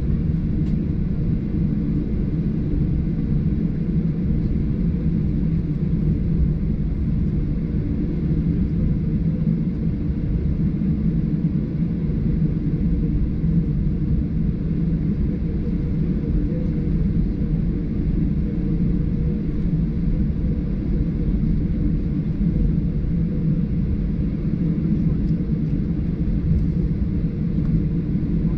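Steady low rumble of a Boeing 737-800 in flight or on the ground, the noise of its CFM56-7B engines and airflow heard inside the passenger cabin, unchanging in pitch and level.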